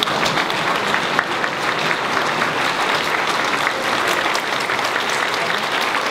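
A large audience applauding: dense, steady clapping from many hands.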